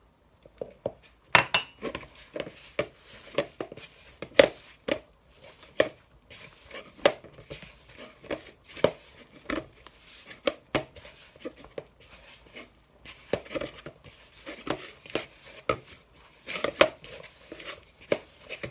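Hand mixing and kneading soft dumpling dough in a plastic bowl: irregular squelches and soft knocks of hand and dough against the bowl, about one or two a second.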